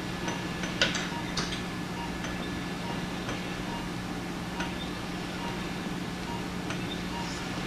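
Operating-room background of a steady low hum with faint short beeps about twice a second, broken by a few sharp metallic clicks of surgical instruments, the loudest about a second in.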